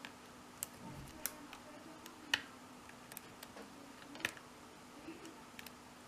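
Faint, irregular metal clicks and ticks of a short hook pick working the pins of a 5-pin ZONE mortice cylinder lock held under a tension wrench during single pin picking, about a dozen light clicks, the sharpest about two and four seconds in.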